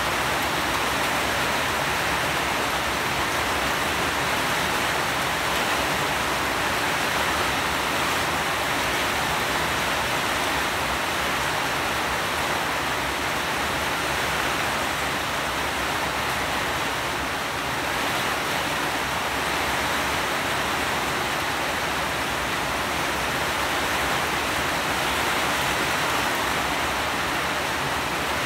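Steady rain falling, an even, unbroken hiss with no thunder or single drops standing out.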